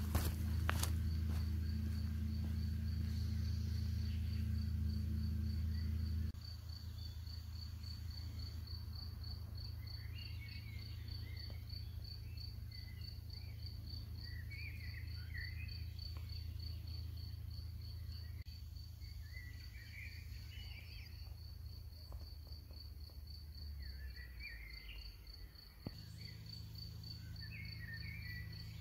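A cricket-like insect chirring steadily in a rapid, even pulse, with small birds chirping intermittently from about ten seconds in. A low steady rumble fills the first six seconds and returns near the end.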